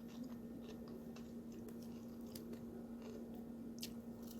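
Person chewing a crunchy salad of lettuce, cucumber and kimchi with ranch dressing, with faint scattered crunches.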